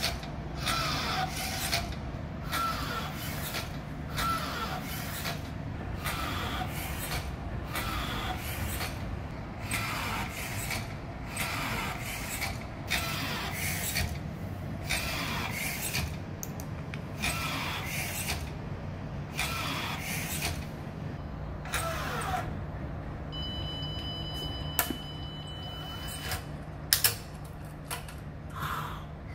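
Motor-driven steel-cable pulley of a bag-valve-mask emergency ventilator running, its bumpers squeezing the bag in a repeating rhythm over a steady motor hum. Near the end a steady high beep lasts about three seconds, and there are two sharp clicks.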